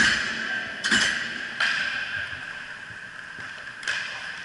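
Inline hockey play: several sharp clacks of sticks, puck or skates against the floor and boards, about four in all, over a steady rink noise.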